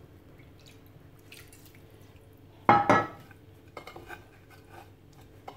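Water trickled from a plastic jug onto steamed fine vermicelli and hands rubbing and tossing the moistened strands in a terracotta dish, to wet the vermicelli between steamings. A short ringing clink about three seconds in is the loudest sound, with a few small ticks after it.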